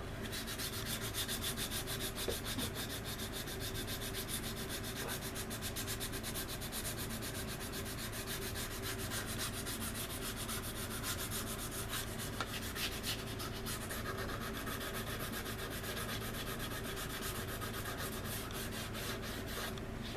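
Sanding stick rubbing on a resin model aircraft part in quick, even back-and-forth strokes, a steady dry scraping that keeps on without pause.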